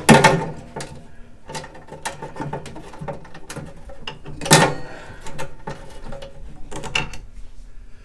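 Screwdriver clicking and scraping against the furnace's sheet metal as a tight flame-sensor screw is worked at in a cramped spot, with two louder metal knocks, one right at the start and one about four and a half seconds in.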